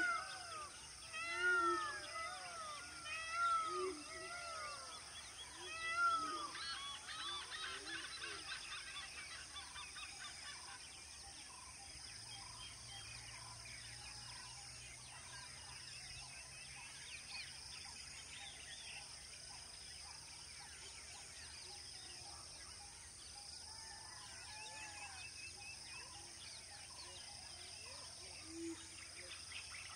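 Outdoor wildlife chorus: a series of loud calls, each rising then falling, in the first six seconds, followed by a busy twittering bird chorus that thins out. A steady high insect drone runs underneath, and another single loud call comes near the end.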